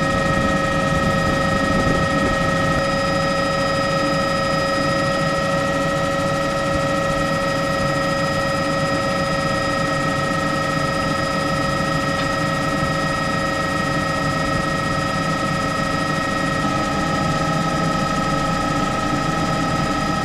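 A steady engine drone with several constant whining tones over a low rumble, running unchanged throughout.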